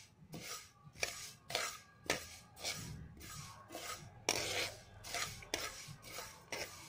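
Spatula scraping and stirring fenugreek seeds across a hot pan as they dry-roast, a gritty rasp of seeds on the pan surface repeated in strokes about twice a second.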